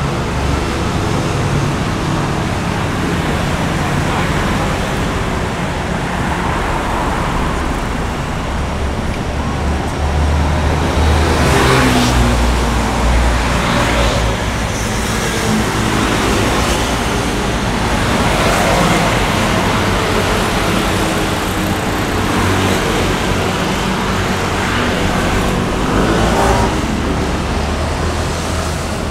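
City street traffic: a steady wash of motor vehicle noise with a low engine rumble, and a few vehicles passing closer, the loudest about twelve seconds in.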